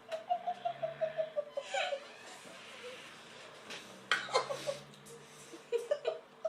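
A person laughing: a quick, even run of short laughs in the first two seconds, then a couple more short bursts of laughter about four seconds in and near the end.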